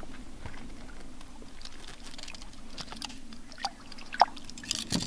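Light water splashing and dripping as a hand lets a hampala barb go into the water beside a boat, over a low steady hum. One sharp click about four seconds in, and a few more near the end.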